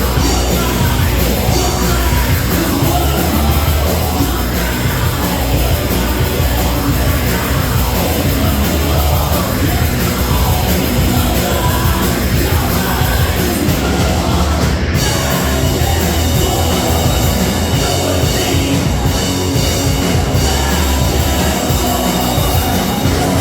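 Live rock band playing loud, heavy rock music with a dense full-band sound throughout.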